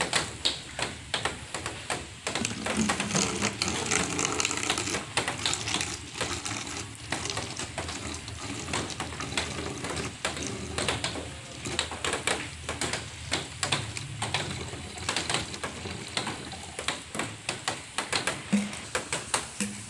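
Vinegar being poured from a small plastic bottle into a larger plastic bottle, with many irregular clicks and taps from the plastic bottles being handled.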